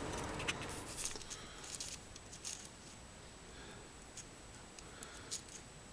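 Light, scattered clicks and ticks of small metal pistons and clear plastic radial-engine parts being handled and fitted together.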